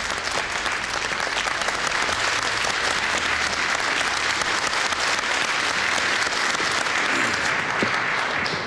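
Audience applauding: many hands clapping together in a steady, dense patter that eases off at the very end.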